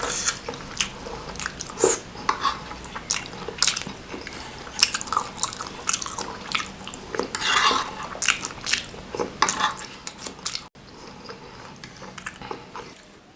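Close-miked chewing and biting of spicy noodles and tendon meatballs, with many quick, irregular wet mouth clicks and crunches. It goes quieter after a short break near the end.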